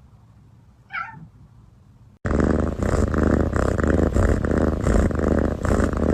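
A cat gives one short meow, rising in pitch, about a second in. About two seconds in, a much louder, rough, pulsing sound starts abruptly and carries on.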